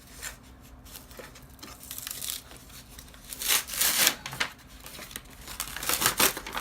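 Cardboard and paper packaging being handled and torn open, rustling and crinkling in irregular bursts, loudest about three and a half seconds in and again near the end.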